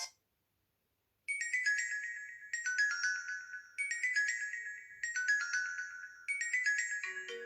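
Built-in ringtone of a Sony Ericsson Xperia Active phone playing: after about a second of silence, a high, marimba-like phrase of quick notes starts and repeats about every 1.2 seconds, with lower notes joining near the end.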